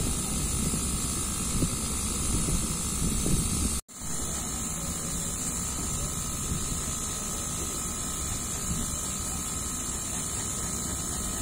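Steady machine running noise with a faint high hiss, breaking off for a split second about four seconds in and then carrying on unchanged.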